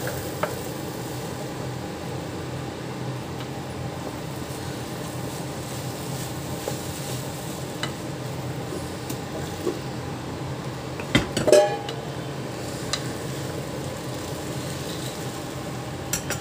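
Boiled white peas being stirred into tomato masala in a pan with a wooden spatula: a steady low sizzle with soft scraping, and a short clatter of the spatula against the pan about eleven seconds in.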